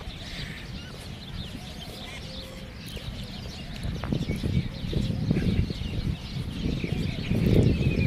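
Many small birds chirping and twittering in the park trees. A low rumble under them swells and fades, loudest near the end.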